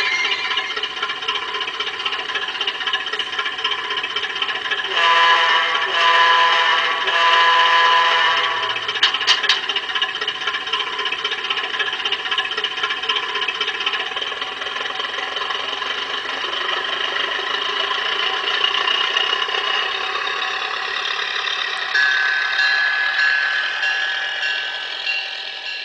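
Engine sound from the Zimo sound decoder in a Bachmann Davenport garden-railway locomotive, running steadily under the rattle of the train's wheels on the track. About five seconds in come three short pitched blasts, and a steady higher tone joins about three quarters of the way through before the sound fades at the end.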